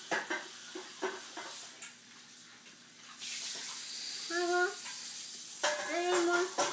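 A young child's voice making two short high-pitched sounds without words, over a steady hiss like a running tap that starts about three seconds in. Light clicks of eating and cutlery come before it.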